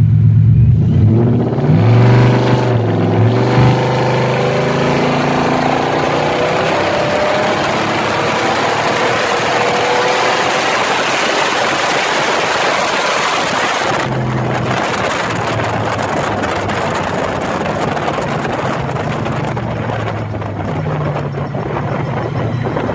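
Kenne Bell-supercharged Ford Coyote V8 of a 1955 Ford F100 making a 30%-throttle pull in second gear, heard from inside the cab: the revs climb steadily for about twelve seconds. About fourteen seconds in the sound drops off suddenly and the engine runs on more quietly.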